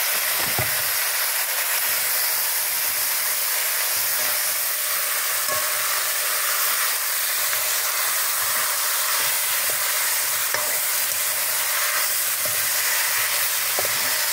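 Seasoned goat meat sizzling steadily in hot curried oil in a metal pot as it is stirred, with a few light knocks of the spoon against the pot.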